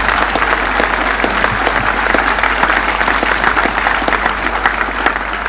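Large outdoor crowd applauding steadily, a dense even clatter of many hands clapping, easing slightly near the end.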